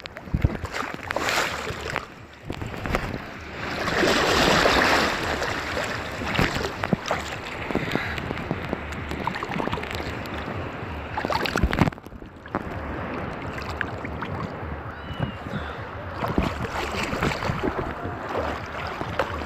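Sea water sloshing and splashing close to the microphone, with wind noise and small knocks, and a louder rush of water about four seconds in.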